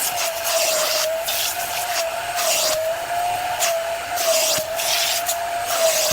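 VEVOR wet-dry vacuum cleaner running with a steady motor whine, its rushing air noise dropping and surging irregularly as the nozzle is worked over the fabric of a car seat.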